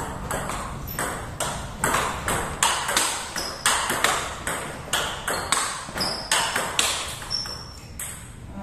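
Table tennis rally: the plastic ball clicking sharply off the rubber rackets and the table top, about three hits a second in a steady back-and-forth, thinning out near the end.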